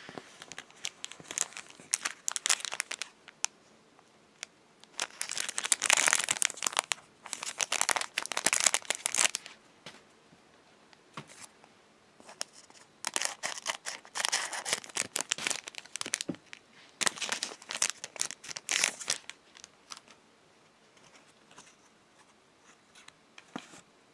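Clear cellophane wrapper of a Pokémon card pack crinkling and tearing as it is opened by hand, in several bursts with short pauses between. Near the end only light clicks and taps are left as the card and plastic tag are handled.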